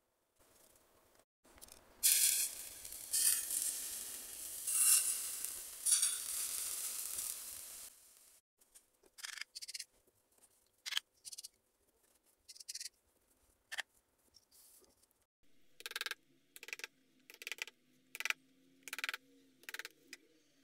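Molten metal poured into a sand mould, hissing and sizzling in surges for about six seconds. Then a series of sharp clicks and light metallic taps as the cast metal letters are handled and set down.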